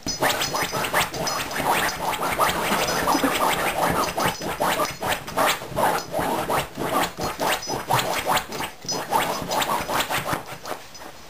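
Beagle puppy digging at fabric sofa cushions with its front paws: rapid, continuous scratching and rustling of the upholstery that stops just before the end.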